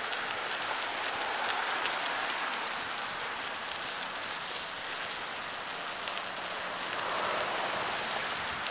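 Steady rushing noise of wind and road on the microphone of a camera riding on a moving bicycle, swelling a little about two seconds in and again near the end.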